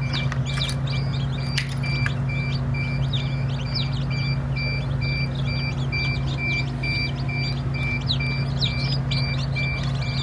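Chicks peeping in short, sharp chirps over a steady machine hum and a rapid, regular electronic beeping of about two to three beeps a second.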